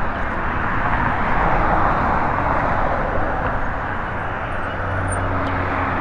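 Steady rush of wind and road noise from riding a small e-bike along a roadside path, swelling slightly about one to three seconds in.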